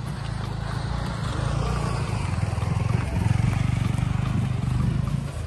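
Motorcycle engine running close by, growing louder over the first few seconds and dropping off near the end as it goes past.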